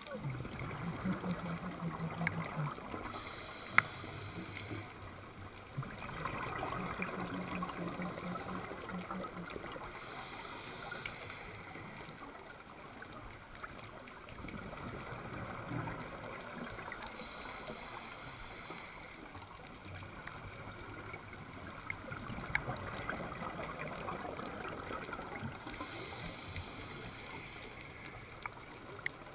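Scuba diver breathing through a regulator: a short hiss on each inhale, four times at a steady seven-to-eight-second rhythm, each followed by a longer stream of exhaled bubbles, twice with a low hum from the exhaust.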